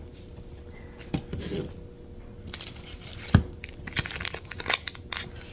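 Cardboard box and wrapped card packs being handled and shuffled, with crinkling and rustling that grows busier partway through and one sharp knock near the middle.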